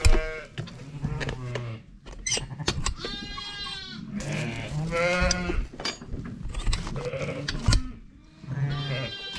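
Sheep and lambs bleating: several wavering calls, some overlapping, with lower calls under them and a few sharp knocks.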